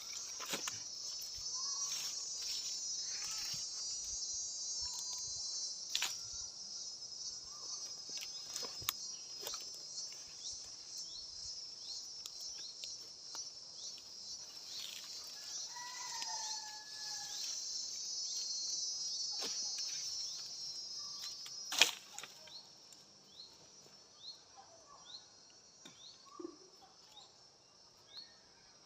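A chorus of insects buzzing at a high pitch, stopping suddenly about three-quarters of the way through. Scattered knocks and clicks sound throughout, the loudest one just before the buzzing stops, and short repeated chirps follow it.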